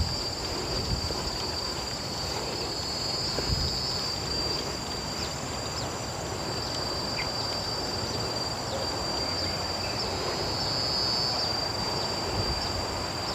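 Steady high-pitched insect chorus drone with scattered short high chirps, over a low, even background noise.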